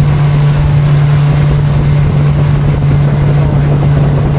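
Outboard motor of a pontoon-style party boat running steadily under way: a loud, even drone on one steady pitch, with water and wind noise over it.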